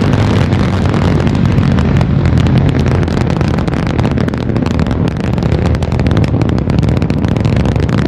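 Northrop Grumman Antares rocket's first stage, two RD-181 engines, running at full thrust during ascent: a loud, steady rumble full of rapid crackling.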